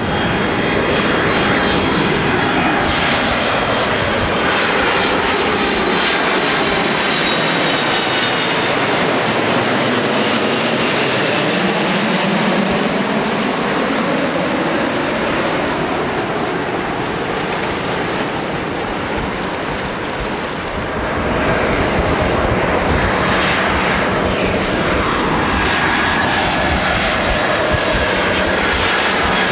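Jet airliners passing low on their landing approach, their engines running with a loud, steady rush. Tones in the engine noise slide down in pitch as each aircraft goes by. A slight lull about twenty seconds in is followed by the next aircraft, which brings a steady high whine.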